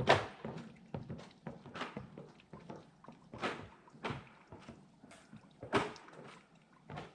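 Footsteps on a staircase: an uneven series of thuds and scuffs, one every half second to a second or so.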